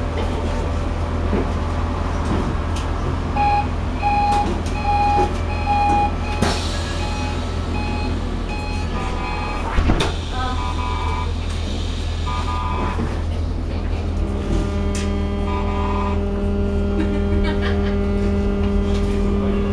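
Inside TEC tram 7416: a steady low hum from the tram's equipment, with a run of about six short beeps around four seconds in and a sharp knock about ten seconds in. From about fourteen seconds a steady motor hum sets in as the tram starts to move off.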